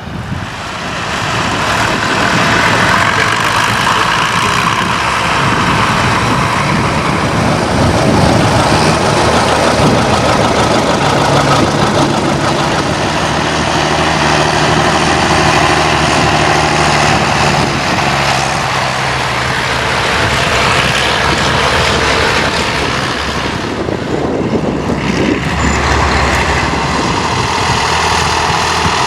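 Heavy engine of vintage farm machinery running, loud and steady, swelling up about a second in and easing briefly near the end.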